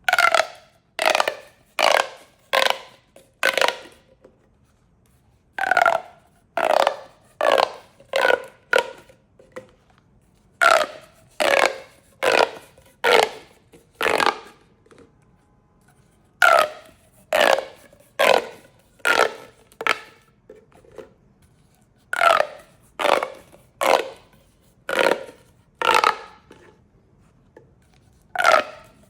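Corrugated plastic pop tubes being stretched and squashed, each stroke giving a short pitched pop that slides down in pitch. The pops come about once every 0.7 s in runs of about five, with a brief pause between runs.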